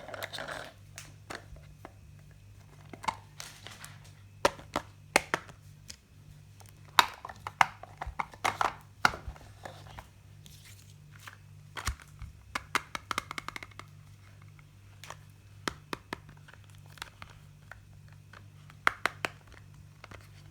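Toy makeup packaging being opened by hand: crinkling and tearing of wrapping, with many sharp clicks and taps from handled pieces, loudest in short flurries.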